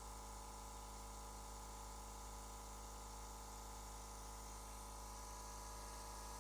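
Steady faint hum and hiss of room tone, with no distinct events.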